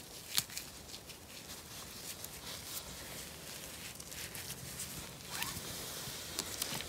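Footsteps and rustling over a mossy forest floor of pine needles and twigs, with many small scattered crackles and snaps.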